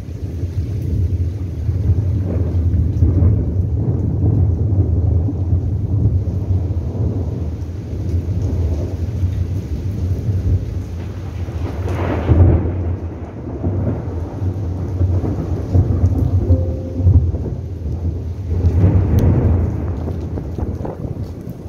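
Thunder rumbling through steady rain, with louder rolls about twelve seconds in and again near the end.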